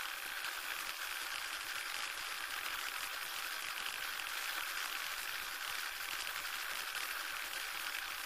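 Steady static hiss with a fine crackle running through it, a noise sound effect like old film or record surface noise.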